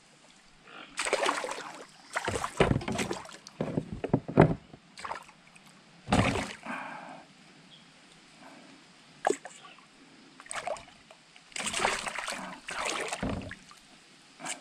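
Irregular splashing and sloshing water as a hooked piraputanga thrashes at the surface beside a kayak while it is being landed, in short bursts with quieter gaps, some with dull thumps.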